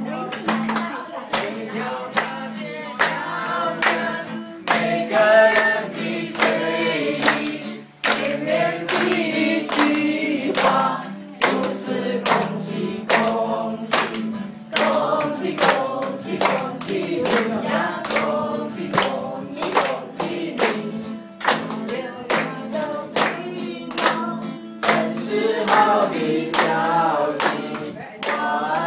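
A group of people singing together while clapping their hands on a steady beat.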